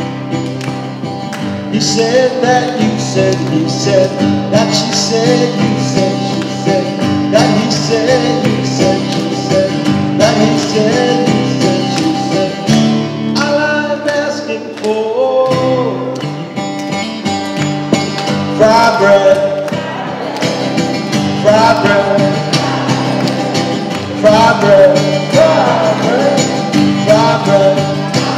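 Acoustic guitar strummed in a steady rhythm while a man sings, the singing coming in about two seconds in.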